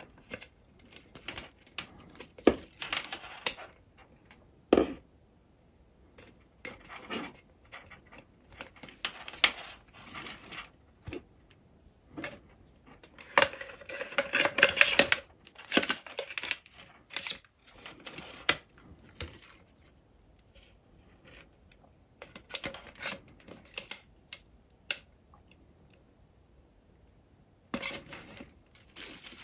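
Hands handling a plastic ducting tube and a flexible LED strip: scattered clicks, taps and scraping rustles as the strip slides along and through the plastic. There is a longer run of scraping about halfway through and a quieter stretch after it.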